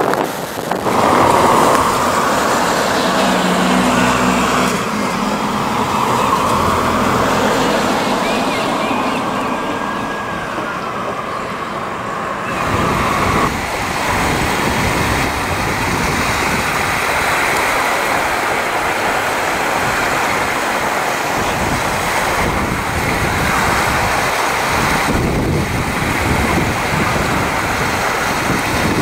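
Waves breaking and surging, with wind buffeting the microphone, as a steady rushing noise throughout.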